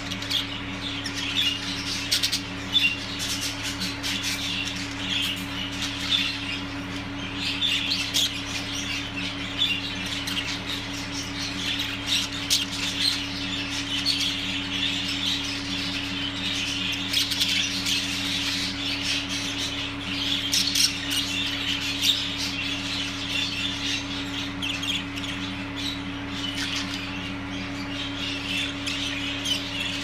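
Budgerigars chattering: a continuous warble of quick chirps, clicks and short squawks, now and then louder, over a steady low hum.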